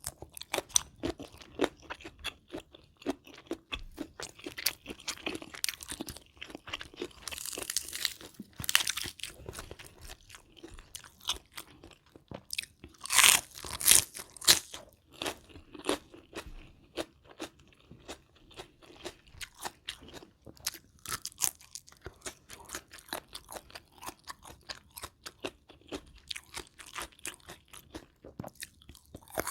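Close-miked chewing and crunching of a mouthful of spicy rice-noodle salad with shrimp and raw vegetables: irregular wet crunches and clicks, with a louder run of crunches about halfway through.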